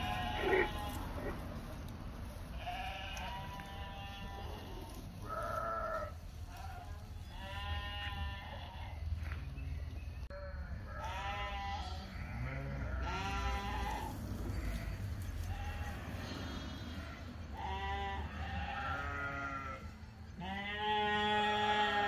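Flock of sheep bleating, many separate calls one after another and overlapping, several with a quavering wobble, the loudest near the end. A low steady rumble runs underneath.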